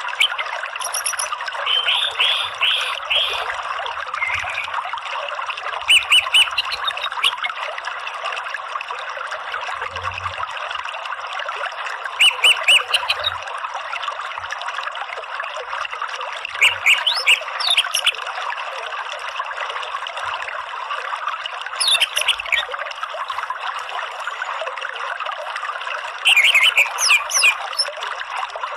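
Orange-headed thrush calling in short bursts of quick repeated chirping notes, about six bursts a few seconds apart, over the steady rush of a running stream.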